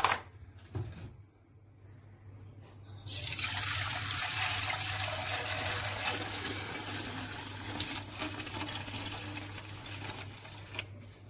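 Warm milk poured in a steady stream from a large pot into a smaller pot holding yogurt starter. The pouring begins about three seconds in and tails off near the end.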